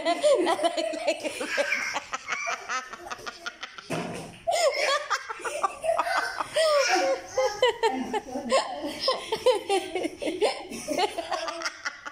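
People laughing hard in repeated bursts, with the higher laughter of a small child among them.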